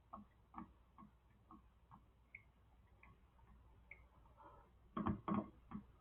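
Faint steady ticking, about two ticks a second, with a few louder knocks and clatter about five seconds in.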